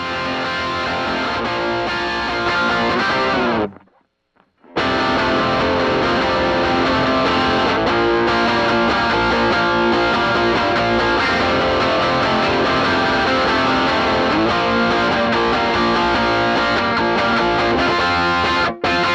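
Distorted electric guitar played through a cranked Fender Bassman tube amp, ringing chords and riffs with heavy drive. A little under four seconds in, the notes slide downward and the playing stops dead for about a second, then starts up again.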